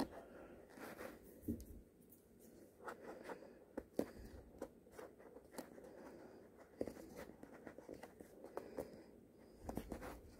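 Fingernail picking and scratching at packing tape on a cardboard box: faint, irregular clicks and scrapes.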